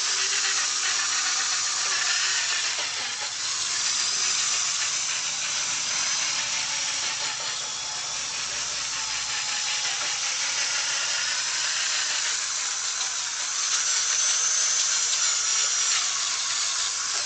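Electric drill spinning a 3M abrasive disc against a wet plastic headlight lens, sanding it: a steady, high-pitched whir and hiss that eases a little about halfway through.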